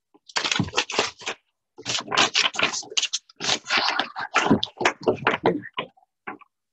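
Printed paper sheets rustling and crackling as they are handled and shuffled, in a quick irregular series of crisp rustles that stops shortly before the end, followed by a couple of single clicks.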